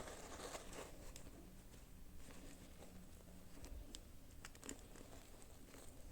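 Faint rustling and crinkling of toy packaging being handled, with a few light clicks of small plastic pieces about four to five seconds in.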